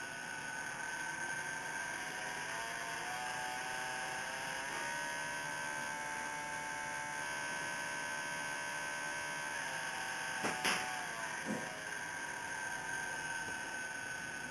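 Prototype micro brushless motor running with a steady high whine, rising in pitch as it spins up over a few seconds and then holding speed. A couple of sharp clicks come about ten seconds in, followed by a short drop in pitch.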